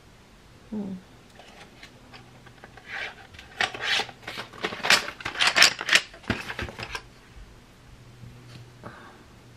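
Handling noise from a cardboard box of Crayola colored pencils on a wooden desk: a run of quick rustles, scrapes and taps, loudest in the middle seconds.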